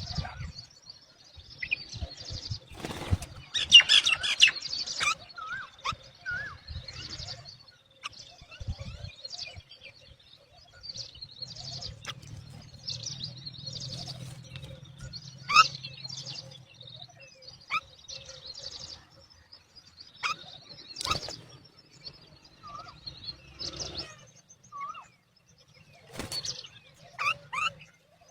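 Mynas calling: a series of short chirps and harsh, scratchy calls in irregular bursts, densest a few seconds in, with a low rumble underneath at times.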